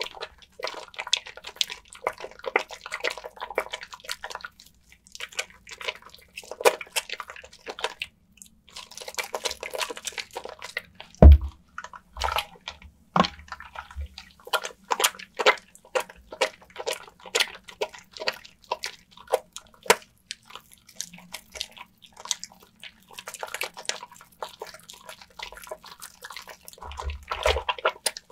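Wet bar of soap being lathered in water: dense crackling, squelching and dripping, with one loud low knock about 11 seconds in.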